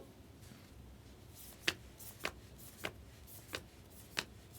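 Trading cards being flipped through one at a time by hand: five crisp card snaps a little over half a second apart, starting about one and a half seconds in.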